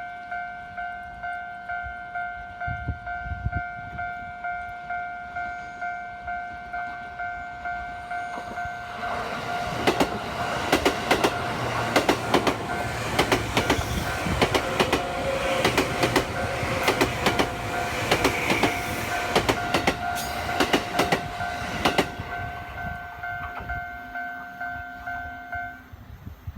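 Japanese level-crossing warning bell ringing steadily at about two dings a second, stopping near the end. Partway through, a train, the Super View Odoriko 251 series, passes over the crossing for about twelve seconds, its wheels clacking rapidly over the rail joints.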